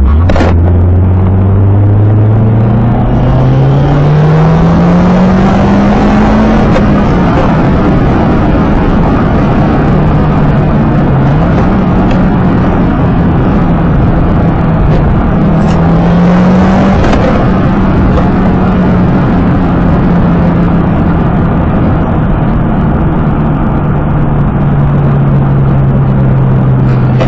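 Subaru Impreza WRX STI (GDB) turbocharged flat-four engine running under load, its pitch climbing steadily for about seven seconds, then holding high with a couple of dips and easing down near the end. The owner is chasing an abnormal noise that he suspects comes from the turbocharger.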